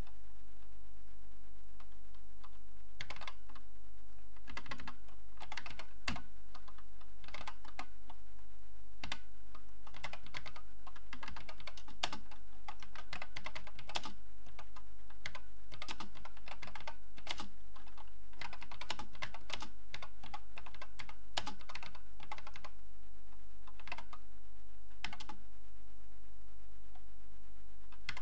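Acorn Electron keyboard being typed on slowly, with irregular key clicks a few at a time and short pauses between them, over a steady low hum.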